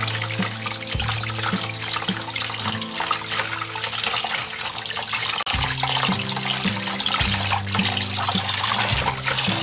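Kitchen tap running into a plastic bowl of water, splashing as a pole-wrapped shibori cloth is rinsed and worked under the stream. Background music with a stepping bass line plays over it.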